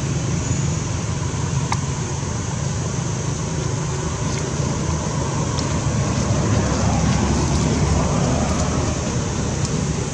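Steady low rumble of motor traffic, with a few faint clicks.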